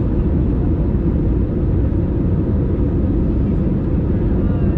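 Steady cabin noise of an easyJet Airbus A320-family airliner in flight, heard from a window seat over the wing: a continuous deep rumble of jet engine and airflow.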